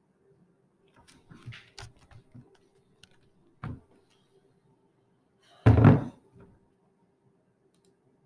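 A Riddell football helmet handled against a desk: scattered light knocks and rattles, another knock midway, then a heavy thunk about six seconds in, the loudest sound.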